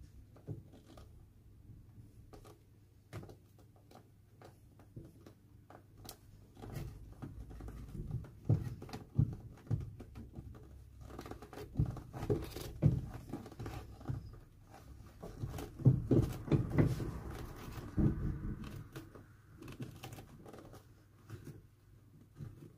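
A knife cutting through the welt stitching between a shoe's welt and its old leather sole, with irregular snicks and scraping as the blade works round the sole. The cutting is sparse at first and busiest and loudest through the middle stretch.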